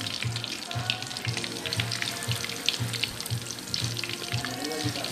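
Batter-coated white shrimp frying in hot peanut oil in a steel wok: a steady sizzle full of small crackling pops.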